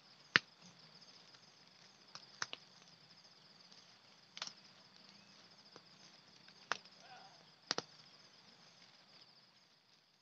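Insects chirring steadily at a high pitch, broken by five or six sharp clicks and knocks, the loudest about half a second in and two close together near the end.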